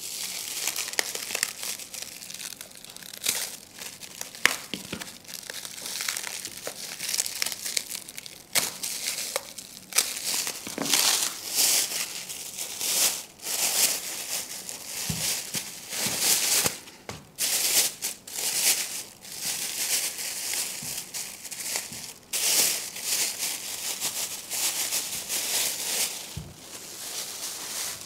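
Clear plastic bag wrapping crinkling and rustling in uneven bursts as it is handled and pulled off.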